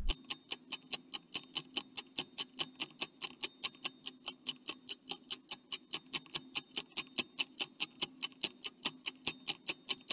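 Countdown-timer clock-ticking sound effect: fast, even ticks at about five a second, cutting off suddenly at the end.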